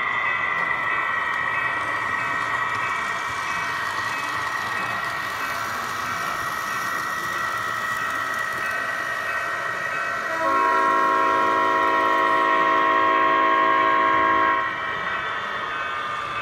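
Sound decoder of an Atlas SD40 O-scale model locomotive playing a diesel engine running sound through its onboard speaker, with one long horn blast starting about ten seconds in and lasting about four seconds.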